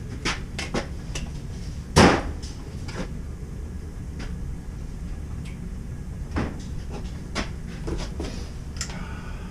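A series of scattered knocks and clicks from tools and pipe being handled, the loudest a sharp knock about two seconds in.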